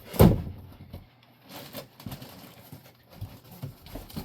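Model airplane fuselage being worked out of its cardboard shipping box: a loud bump near the start, then irregular knocks, scrapes and rustling of cardboard and packing.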